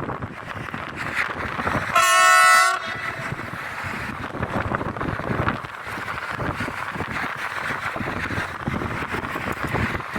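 A train sounds one short horn blast about two seconds in, over the steady rushing rumble of a train running on the track.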